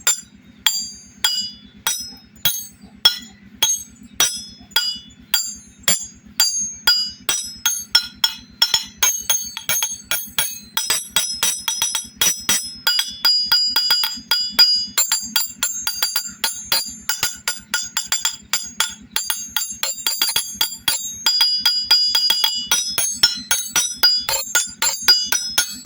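Metal car keys being struck, each hit a sharp clink with high ringing tones. About two strikes a second at first, speeding up after about eight seconds into a rapid, dense run of clinks, over a faint steady low hum.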